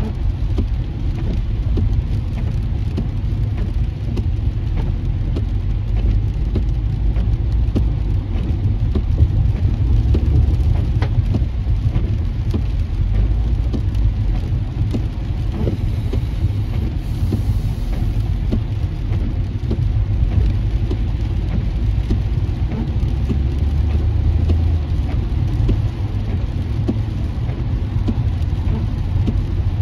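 Car travelling at freeway speed in heavy rain, heard from inside the cabin: a steady low rumble of tyres on wet pavement, with rain hitting the windshield in many small ticks.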